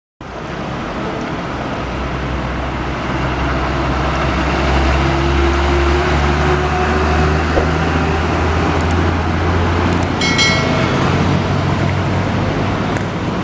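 Mitsubishi three-axle tronton truck's diesel engine running as it drives past close by, a deep steady drone that builds to its loudest around the middle, over general traffic noise. A short high-pitched tone sounds about ten seconds in.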